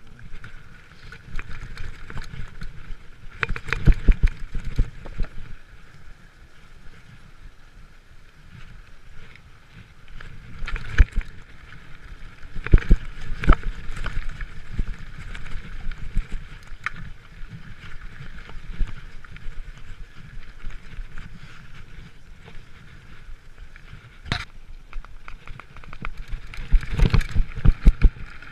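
Giant mountain bike riding fast down a rough dirt trail: a steady rolling rumble and hiss from the tyres and air, broken by repeated sharp knocks and rattles as the bike hits bumps, heaviest in a few short bursts and again near the end.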